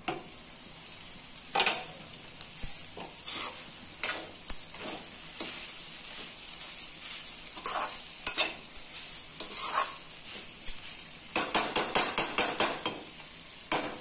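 Chopped bottle gourd and chana dal frying in a metal kadhai, a steady sizzle, while a metal slotted spoon scrapes and clinks against the pan in irregular strokes. Near the end the strokes come in a quick run of several a second.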